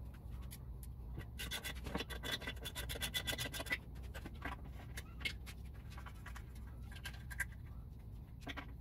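Ratchet wrench clicking in a rapid run for about two and a half seconds, then scattered clicks and scrapes, as the bolts of an outboard's lower gearcase are run in; a low steady hum underneath.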